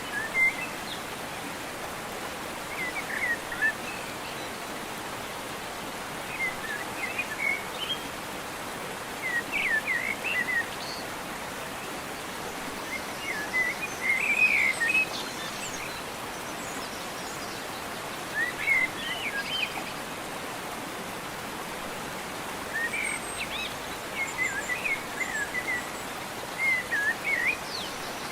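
Steady rush of a waterfall, with a bird singing short, quick chirping phrases every few seconds over it.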